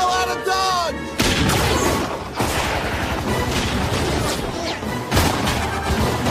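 Movie battle soundtrack: orchestral score, then from about a second in a volley of rifle gunfire and explosions with the music underneath, with another loud blast about five seconds in.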